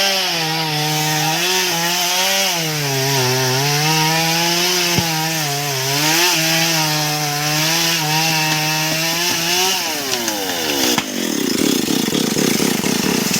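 Stihl MS 382 two-stroke chainsaw cutting into a tree trunk, its engine pitch sagging and recovering as the chain loads up in the cut. About ten seconds in the revs fall away as the throttle is released, followed by a low rushing noise.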